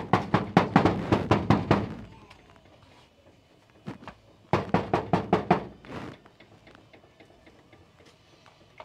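A fist knocking hard on a door: a fast run of about ten knocks, a short pause, then a second run of knocks about four and a half seconds in.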